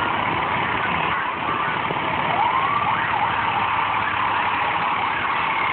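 Fire apparatus and ambulances in a long procession: a heavy rescue truck passing close with its engine running, under a steady wash of traffic noise. A siren sounds in the line, with a short rising wail about two and a half seconds in.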